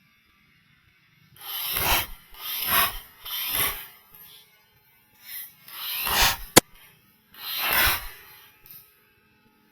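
Rubbing and scraping against the gun-mounted camera, in five loud bursts of about half a second each, with one sharp click about two-thirds of the way through.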